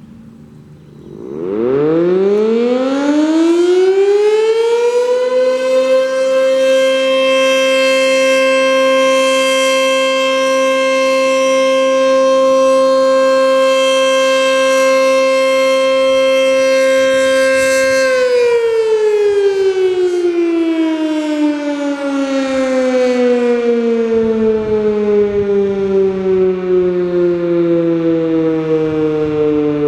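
Outdoor warning siren sounding its noon test. It winds up from a low pitch to a steady tone within about four seconds and holds it for about thirteen seconds. Then it winds down with steadily falling pitch.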